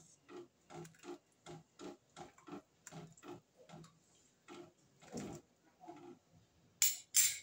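Steel ladle working through rasam in an aluminium kadai, making a regular run of soft knocks about three a second, then two sharp metal clinks near the end.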